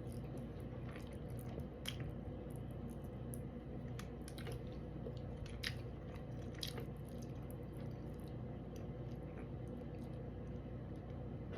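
A person chewing and eating fish close to the microphone, with scattered short wet clicks and smacks, the sharpest about two, five and a half, and seven seconds in, over a low steady hum.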